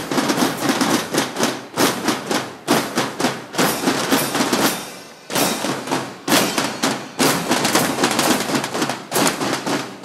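Marching band snare drums and a bass drum beaten in a fast, loud march rhythm, with a short pause about five seconds in before the beating resumes.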